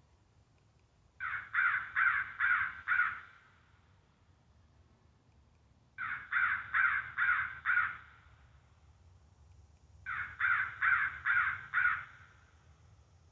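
Recorded crow caws played through an electronic game caller: three identical runs of five evenly spaced caws, a few seconds apart.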